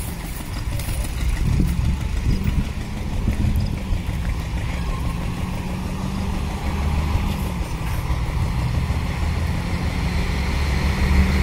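Heavy truck's diesel engine idling steadily: a low, even hum.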